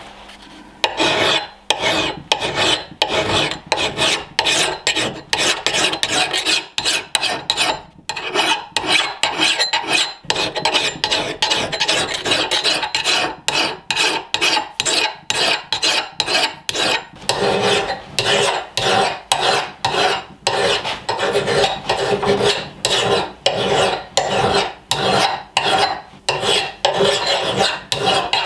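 Medium-coarse flat file rasping across the steel cheek of an axe head in steady back-and-forth strokes, about two a second, starting about a second in. The file is taking metal off the convex hump behind the edge to flatten the bevel.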